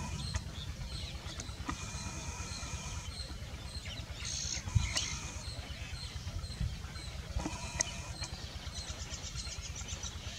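Outdoor ambience: a steady low rumble with small birds calling now and then above it, including a quick trill of repeated high notes near the end.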